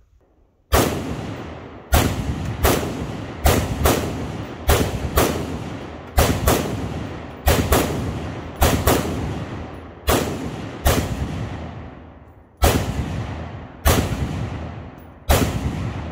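Semi-automatic 5.56 rifle fire: about eighteen sharp shots at an uneven pace, sometimes two in quick succession, each trailing off in a ringing echo.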